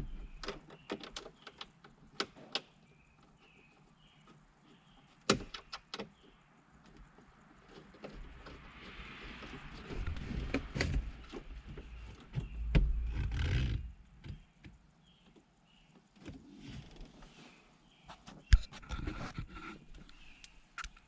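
Scattered clicks and knocks of plastic dash trim being handled and pressed back into place in a Jeep Wrangler TJ, with rustling between them and a louder spell of bumping about thirteen seconds in.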